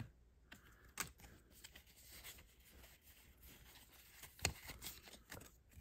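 Faint handling of Pokémon trading cards: a few soft ticks and light rustles as the cards of a freshly opened pack are slid apart in the hands, with a small cluster of ticks near the end.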